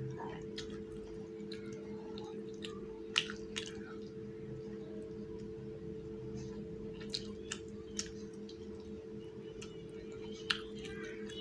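Close-miked chewing of a hand-fed mouthful of rice and fish curry: wet mouth and lip-smacking sounds coming as a few sharp clicks, over a steady low hum.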